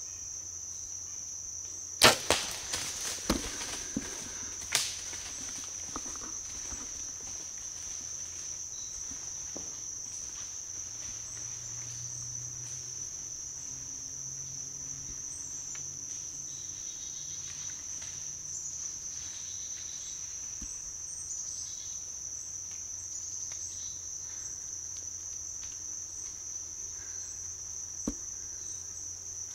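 A bow shot at a deer: one sharp crack about two seconds in, followed by a few quieter cracks and knocks over the next three seconds. A steady drone of crickets runs underneath.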